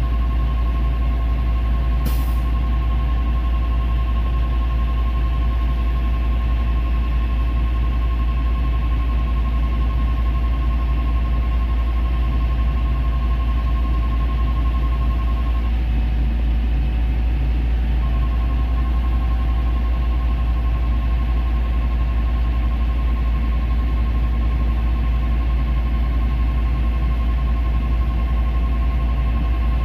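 Caterpillar C7 diesel engine of a Chevrolet C8500 truck running steadily, a deep even rumble with a steady high whine over it. The whine drops out for about two seconds just past the middle and then comes back. There is a single short click about two seconds in.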